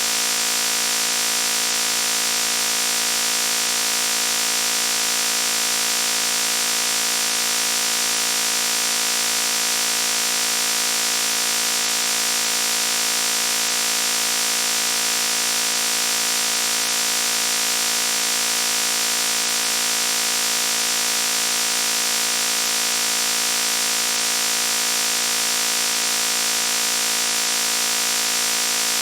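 Loud buzzing noise, one steady, unbroken buzz at a fixed pitch, shrill, with most of its strength high up.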